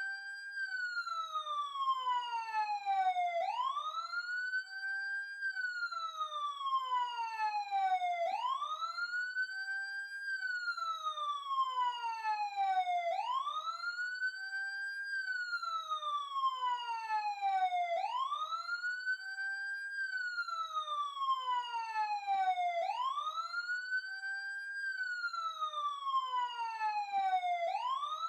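Emergency siren heard close up, wailing in a steady repeating cycle about every five seconds: each cycle rises quickly in pitch, holds briefly at the top, then falls slowly back down.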